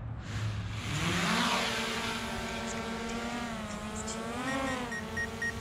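DJI Mavic Air 2 drone spinning up its propellers and lifting off: a rush of air at the start, then a motor whine that rises in pitch about a second in, holds steady, and climbs again briefly near the end. A few short high beeps come near the end.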